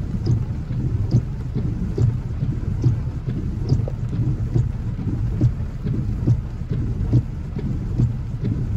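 Heavy rain hitting a vehicle's roof and windshield, heard from inside the cabin: a dense, steady, low patter with scattered sharper clicks of single drops.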